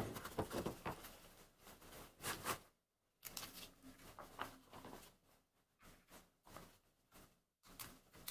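Faint, scattered taps and rustles of small wooden blocks being handled and set into a wooden mold box.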